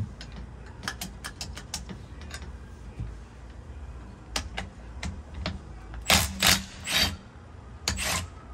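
Cordless impact wrench driving the top nut of a coilover's camber plate, fired in three quick bursts past the middle and once more near the end, with a steady motor tone under the hammering. Before that come scattered metal clicks and knocks as the socket is set on the nut.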